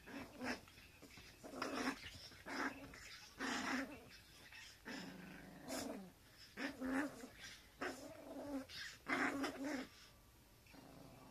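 Teacup poodles growling while they wrestle: short, repeated growls about once a second.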